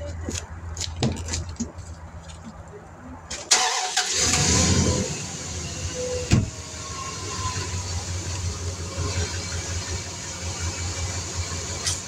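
Truck engine starting about three and a half seconds in, then running steadily, with a hiss as air goes into the tire through a clip-on chuck on the valve stem.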